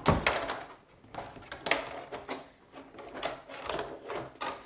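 An RC truck's plastic body shell being handled and pressed down onto its chassis: a string of irregular plastic clicks, knocks and rattles.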